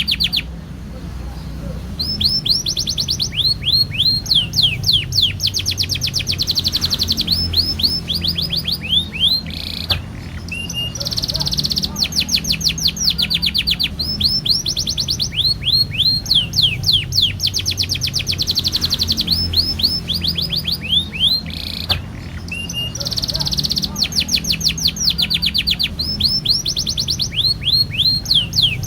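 Domestic canary singing long rolling trills: rapid runs of repeated falling whistled notes, each run lasting several seconds, broken by short pauses, over a steady low hum.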